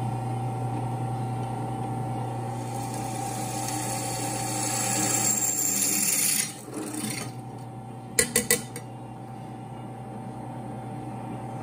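Benchtop drill press running, its bit grinding into a piece of saw-blade steel, the cutting noise growing louder before easing off about six and a half seconds in. The motor then runs on, with a few quick sharp clicks about eight seconds in.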